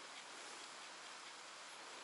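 Light rain falling, a faint steady hiss with occasional soft drop ticks.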